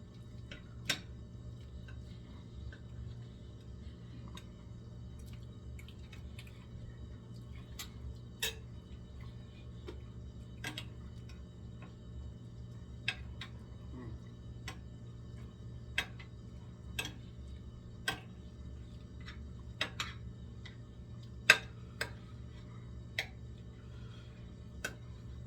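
Cutlery clicking and tapping against plates during eating: irregular, sharp clicks, the loudest near the end, over a steady low hum.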